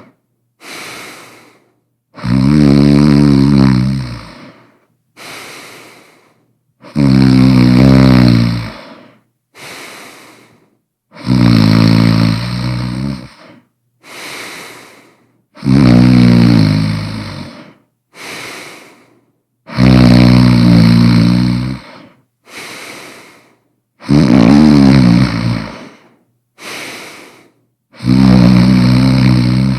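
A person snoring loudly and rhythmically. A loud, rattling snore comes about every four seconds, seven times, and each is followed by a shorter, quieter breath.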